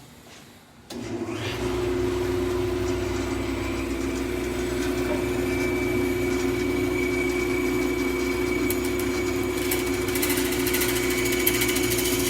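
Bandsaw switched on about a second in and running with a steady hum. Near the end a harsher, rasping sound joins it as the blade cuts through a small wood moulding.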